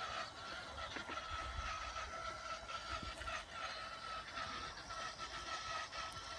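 Electric motors of a home-built robotic lawn mower running as it drives across grass, a steady high whine under uneven low rumbling.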